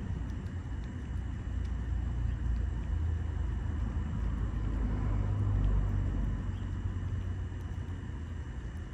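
Low rumble of road traffic, swelling to its loudest a little past halfway and then fading, as a vehicle drives past.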